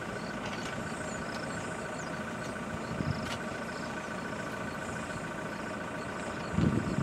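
Game-drive vehicle's engine idling steadily, with a louder low bump just before the end.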